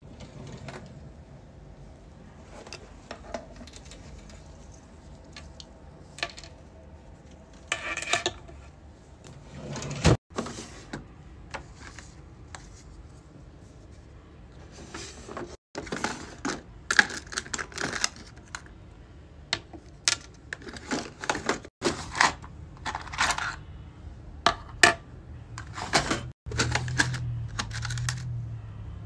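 Keychain parts and plastic storage drawers being handled: a drawer sliding open, then small metal pieces and split rings clinking and rattling in a clear plastic bin, as a series of separate clicks and short jingles.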